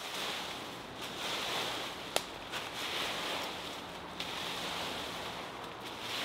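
Leaf rake sweeping through dry fallen leaves: a rustling scrape that swells and eases with each stroke, with a sharp click a little after two seconds.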